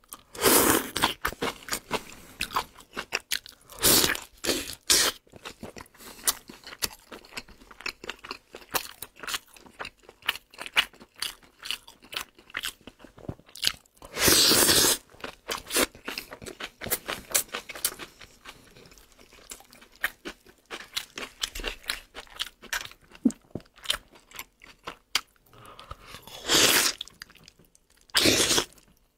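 A man chewing and crunching food close to the microphone, first pickled vegetables, then braised pork trotter, with wet mouth sounds and rapid crackles. Louder, drawn-out mouth sounds come about halfway through and again near the end.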